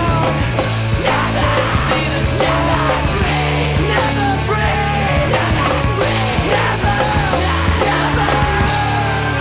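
Emo/post-hardcore band playing at full tilt: distorted electric guitars, bass and steady drums with cymbals. The drums stop near the end, leaving the guitars ringing.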